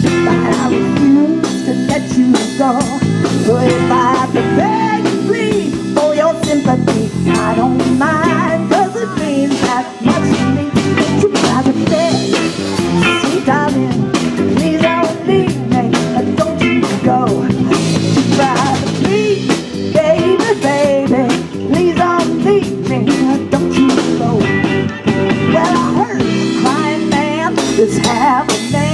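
Live soul-blues band playing: violin lead over electric bass, guitar and a drum kit, with a woman's voice near the end.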